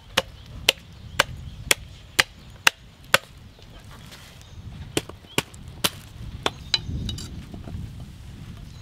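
A knife chopping into a large trevally: seven sharp strikes about two a second, a short pause, then a few more uneven chops.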